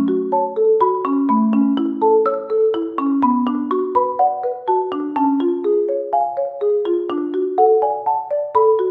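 Background music: a light, quick tune of struck mallet-percussion notes, marimba-like, several notes a second.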